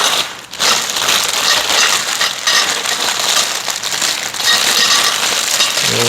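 Continuous crackling rustle with many small clicks as greenhouse frame parts and connectors are handled and sorted.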